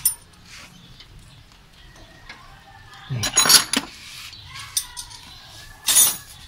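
Metal hand tools clinking and clattering against engine parts. There is a sharp clink at the start, a quick cluster of clanks about three seconds in, and one more sharp clink near the end.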